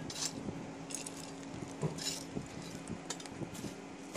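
Metal shovel scraping through charcoal embers and clinking as hot coals are raked and heaped around a large degh cooking pot: scattered light clinks and scrapes.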